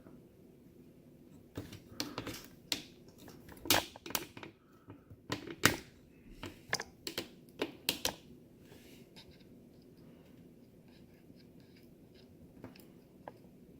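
Irregular sharp clicks and taps of small hard parts being handled. They come thickly for several seconds from about a second and a half in, then thin to a few faint ticks.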